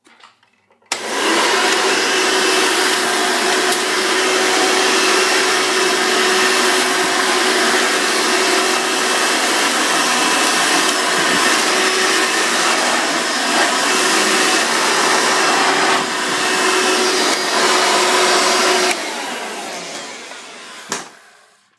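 27-year-old Hoover Elite upright vacuum cleaner switched on about a second in and running steadily with a constant hum while it picks up styrofoam pieces, with a few short knocks. It is switched off near the end, the motor winding down over a couple of seconds.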